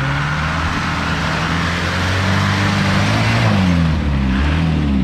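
Mahindra jeep's diesel engine pulling hard in low gear as it climbs a rocky slope. The revs rise about two seconds in, then dip and rise again near the end.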